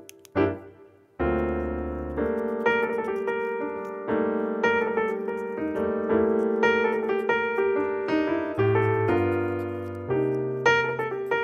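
Background piano music: a slow melody over held low notes, with a brief lull about a second in before a sustained chord comes in.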